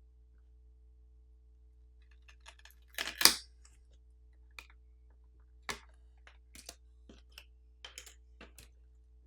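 Scattered clicks and taps of tools and tablet parts being handled while the tablet is being taken apart, with a louder clatter about three seconds in and lighter ticks after it.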